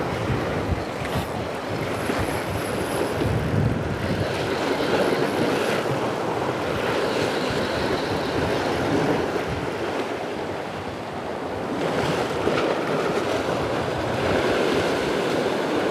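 Sea waves surging and washing against the shore rocks, with wind on the microphone.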